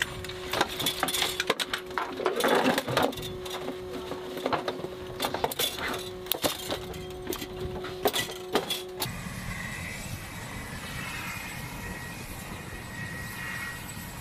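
Metal buckles and fittings of a UH-60 Black Hawk's cabin seat harnesses clicking and clinking as they are handled, over a steady hum. About nine seconds in this gives way to the steady running noise of the Black Hawk helicopter, with a faint whine.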